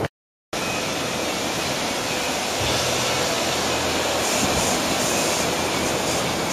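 Rushing, breaking water of a man-made wave in a surf wave pool: a steady dense wash of noise, a little louder and hissier from about three to six seconds in. There is a short gap of silence right at the start.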